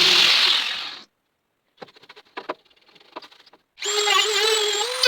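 Handheld electric power tool, drill-type, running on the door's sheet steel during rust-repair work; it cuts off about a second in. A few light taps and knocks of metal handling follow, then the tool starts again with its pitch wavering under load.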